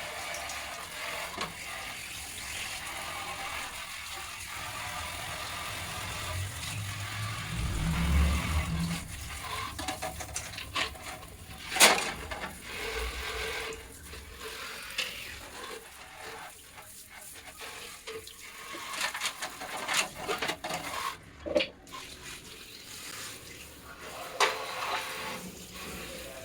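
Water spraying from a handheld bidet sprayer onto plastic table-fan parts being rinsed, with a scattering of sharp knocks as the parts are handled, the loudest about twelve seconds in.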